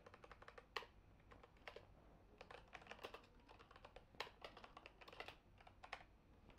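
Faint typing on a computer keyboard: irregular runs of key clicks.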